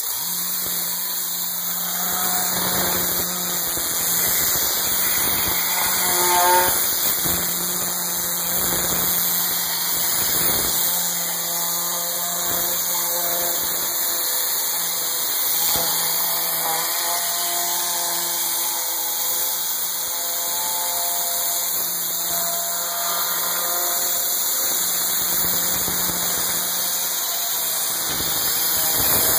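Steam washer (Optiva MV-8000, 8000 W) spraying through its gun: a steady loud hiss over a constant low hum, starting abruptly.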